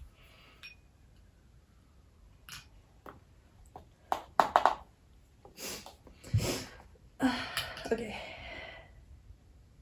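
Quiet handling of food and utensils: a few short clicks and knocks, the loudest a quick cluster a little before halfway, followed by breathy sniffs and exhales.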